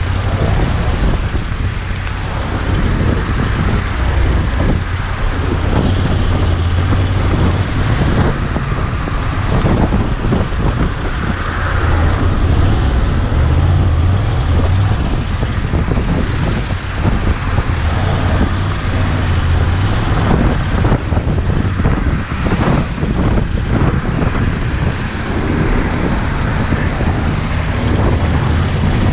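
Motorcycle on the move in traffic: the engine runs under heavy wind noise on the microphone, with steady road and traffic noise.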